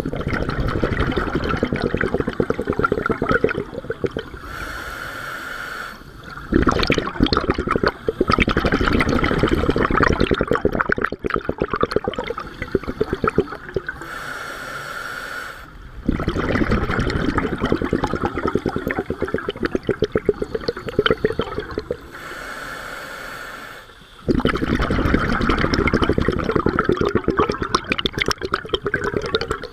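Scuba diver breathing through a regulator underwater: four long stretches of bubbling exhalation, each several seconds, with short hissing inhalations between them.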